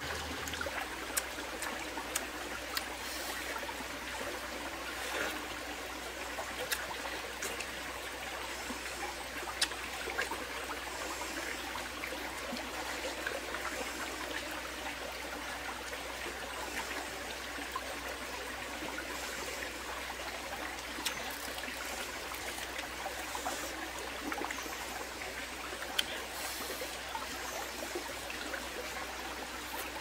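Shallow stream running steadily over rocks, with scattered short clicks standing out here and there.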